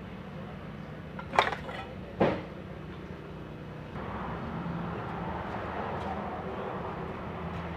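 Two sharp metallic clinks less than a second apart, from metal tools or engine parts knocking together, over a steady low hum.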